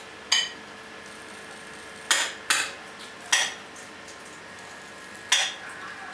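Cutlery clinking against a plate five times, each clink ringing briefly, over a faint steady hum.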